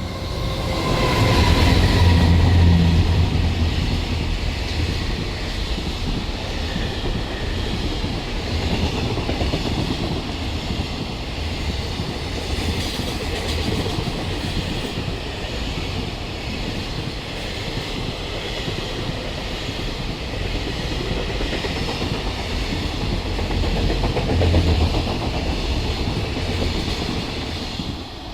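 Long freight train passing close by, its wheels clattering steadily over the rail joints. A falling tone is heard as the locomotive goes by near the start, the loudest part comes about two seconds in, and the wagons run past for the rest of the time.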